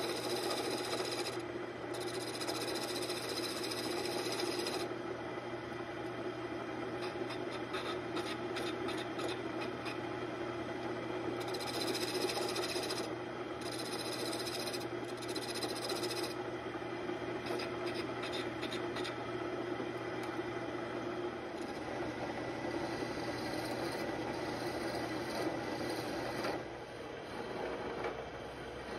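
Wood lathe running while a gouge cuts a spinning walnut blank down into a dowel pin: a steady motor hum under a continuous rough cutting hiss that swells and eases with the tool's pressure. The cutting gets quieter for the last couple of seconds.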